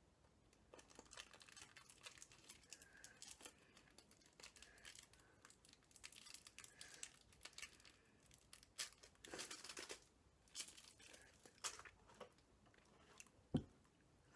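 Faint wet clicks and smacks of sour gum being chewed, with a few louder clicks in the second half.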